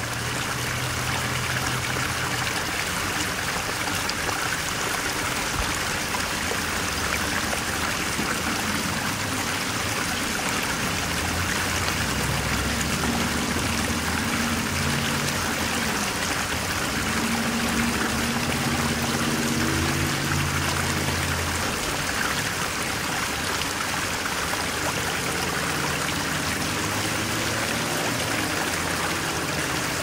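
Steady running-water sound like a trickling stream, with low held tones that shift every few seconds underneath.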